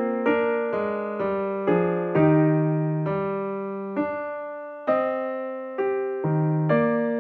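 Background piano music: slow, gentle notes and chords struck every half second to a second, each fading away before the next.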